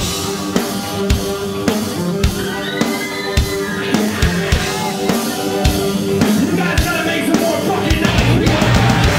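Rock band playing live through a club PA: sustained held chords over regular drum hits, growing louder and fuller toward the end.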